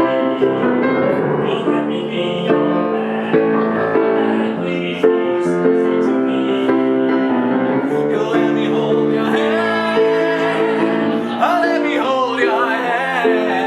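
Piano music, with a singing voice in an operatic style, wavering with vibrato, joining over the piano in the second half.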